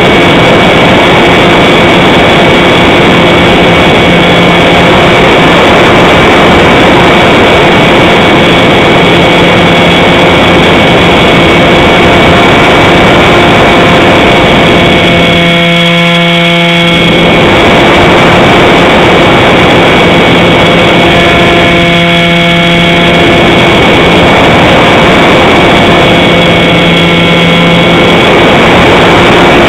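Small radio-controlled model plane in flight, heard from a camera on its wing: its motor and propeller make a steady whine under a heavy rush of wind over the microphone. The wind rush eases briefly a little past halfway and again shortly after, while the motor whine carries on.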